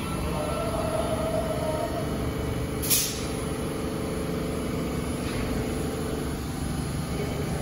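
Subway train standing in the station, humming steadily, with one short, sharp hiss of air from its brakes about three seconds in and a fainter hiss a couple of seconds later.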